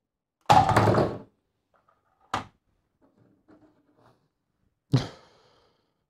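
Lego brick model being handled and set down on a plastic turntable: a thump about half a second in, a sharp click a little after two seconds, faint scraping, then another sharp knock about five seconds in.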